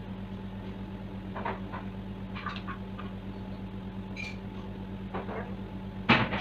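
Steady low hum with a few faint, brief sounds scattered through it, and a short, louder sound near the end.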